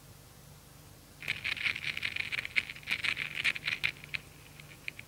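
Phono cartridge's diamond stylus set down on a test record and tracking the groove: a burst of crackle and sharp clicks starts about a second in, then thins to scattered clicks near the end.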